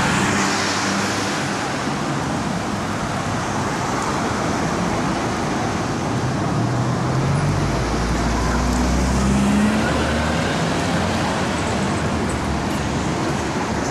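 Road traffic on a city street: a steady hiss of cars and trucks passing. About halfway through, one vehicle's engine grows louder and rises in pitch as it goes by.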